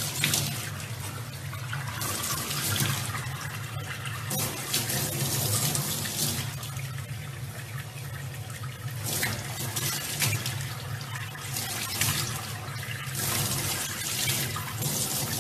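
Tap running into a stainless steel sink, with the water splashing in louder surges every couple of seconds as a baby chimpanzee slaps and plays under the stream.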